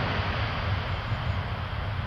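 Boeing C-17A Globemaster III jet transport on short final, its four Pratt & Whitney F117 turbofans making a broad rushing jet noise that fades steadily as it draws away, over a low rumble.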